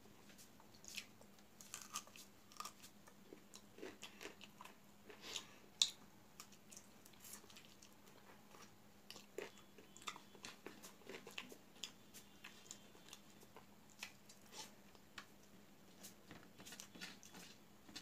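Close-miked eating sounds: a person chewing rice and chicken curry and mixing it by hand on a brass plate, a run of soft wet smacks and clicks with one sharper click just before six seconds in. A faint steady hum sits underneath.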